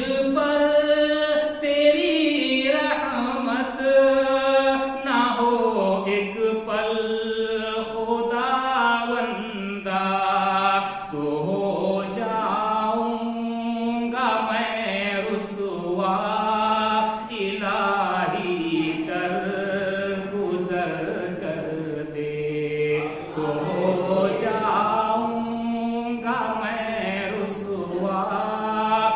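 A man's solo voice chanting a devotional Urdu nazm, unaccompanied and amplified through a microphone, in long melodic held phrases with short breaths between them.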